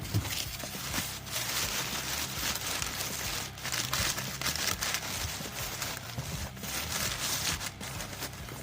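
Packing material crinkling and rustling as it is handled, a continuous irregular crackle with small sharp peaks.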